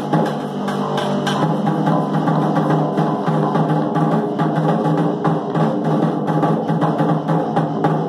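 Live instrumental rock jam: an electric bass guitar playing a low riff under a snare drum struck in a steady beat, with an electric guitar.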